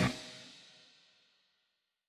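Background music ending on a final hit that rings on and fades out to silence within about a second.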